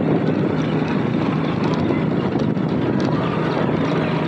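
Honda motorcycle being ridden at a steady speed: the engine running with steady road and wind noise and no change in pace.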